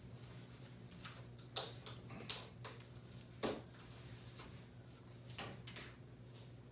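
A handful of light taps and scuffs, the loudest about three and a half seconds in, as a small dog steps onto a towel mat and sits down on it.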